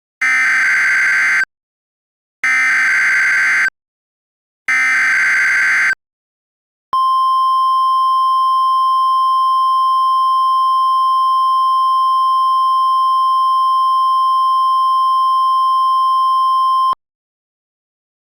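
Emergency Alert System SAME header: three short bursts of warbling digital data tones about a second apart, then a single steady attention tone just above 1 kHz held for about ten seconds and cut off cleanly. This is the NOAA Weather Radio alert tone, which signals that a weather warning is about to be read.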